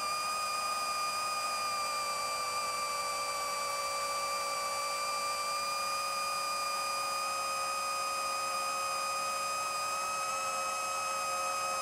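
Brushless motors (Racerstar AirB 2514 1498KV) on an iFlight XL8 V3 quadcopter, spinning 7-inch HQProp 7040 propellers at steady cruise throttle, make a steady, high-pitched whine. The pitch sags slightly and then rises a little near the end.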